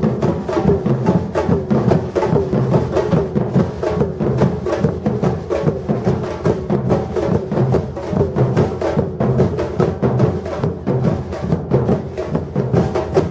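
Batucada drum ensemble playing a steady samba rhythm: deep bass drums under dense, sharp drum strikes that repeat evenly.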